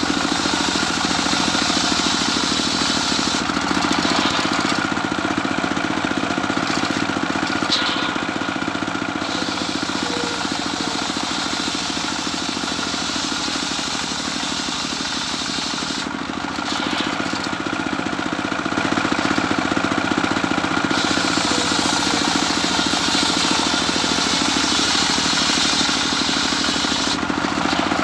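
Homemade engine-driven circular sawmill running steadily, its spinning blade ripping a plank of medang kuning timber lengthwise into 5x5 rafters. The higher cutting hiss fades out twice for a few seconds as the plank is fed through.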